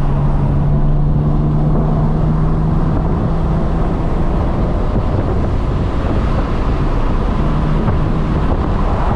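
BMW 335i's N54 twin-turbo inline-six running smoothly on the road, with road and wind noise. The engine's steady note is clear for the first few seconds, then sinks into the road rumble and comes back briefly near the end. The engine runs smoothly on fresh index 12 injectors, spark plugs and coil packs fitted to cure a misfire.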